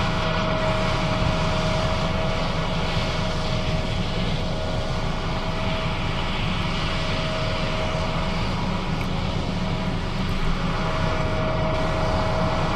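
John Deere S660 combine running steadily under harvesting load, a continuous engine and machinery drone. A thin steady whine rides on top, fading out for a couple of seconds after the middle and then coming back.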